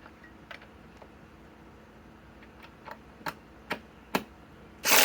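Several light clicks and knocks of cordless tools being handled, then, just before the end, a cordless impact tool starts hammering loudly.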